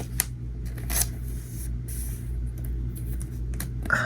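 Pokémon trading cards being handled: a few light clicks and paper rustles as the cards are slid and laid down, over a steady low hum.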